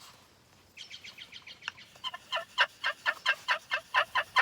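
Turkey call worked by hand in a run of yelps. The notes start soft about a second in, then grow loud and even at about four or five a second.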